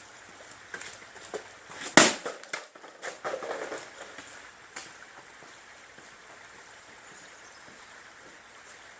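A wooden baseball bat smashes a plastic orange juice jug with one loud crack about two seconds in, followed by scattered lighter knocks and rattles of plastic pieces for about two seconds. A few light knocks come before the hit.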